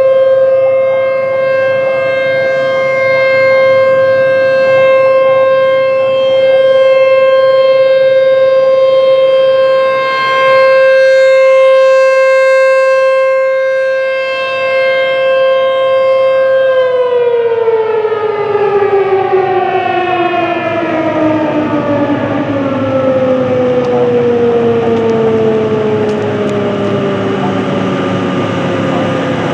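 ASC T-128 outdoor tornado warning siren sounding a steady, loud alert tone at one pitch; about 17 seconds in it shuts off and winds down, its pitch falling steadily as the rotor slows, at the end of a full three-minute test.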